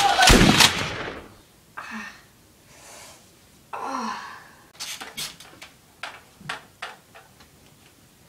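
A loud shout that dies away about a second in, then two breathy gasps and a quick run of sharp clicks and taps.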